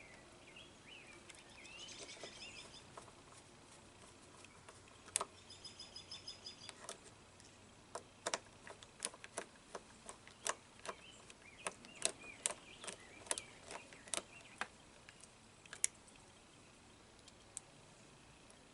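Irregular sharp clicks and taps of small tools and parts being handled at the workbench, clustered in the middle, with birds chirping and trilling in the background near the start.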